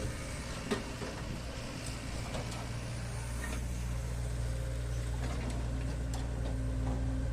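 Heavy diesel machinery running steadily with a low hum, with a few short knocks and clanks, the sharpest about a second in. A steady higher tone joins near the end.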